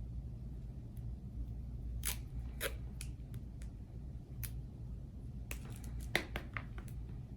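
Red tape being pulled from its roll and wrapped around a coaxial cable: a scatter of short crackles and snaps, the sharpest about six seconds in, over a steady low hum.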